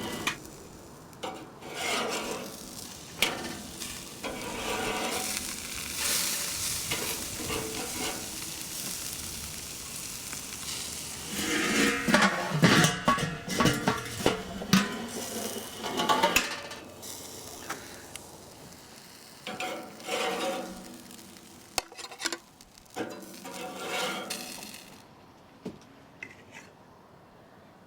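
Food sizzling on a charcoal grill, with irregular clinks and scrapes of metal utensils against the grate. The activity is busiest around the middle and grows quieter towards the end.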